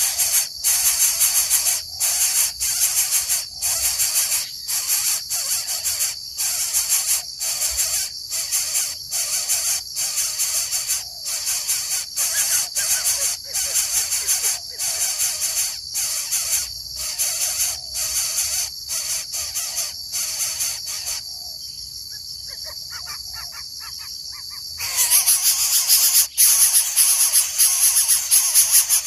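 Coucal making harsh, hissing rasps over and over, about one every 0.7 s, while it is fed. The rasps fall away for a few seconds about three-quarters of the way in, then come back louder.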